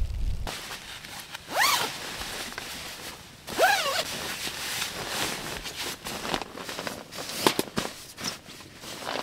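A low wind rumble cuts off about half a second in. Then a sleeping-bag zipper is pulled twice, each pull a rasp that rises in pitch as it speeds up, with rustling of nylon fabric and short clicks as the bag is handled and packed.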